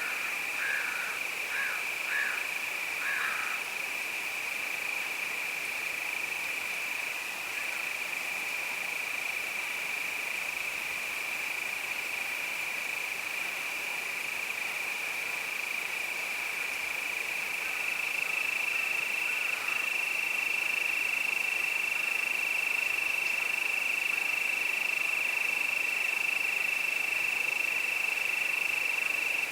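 Crickets trilling in one continuous, steady high-pitched chorus, with a few short lower calls from another animal in the first few seconds and again faintly midway.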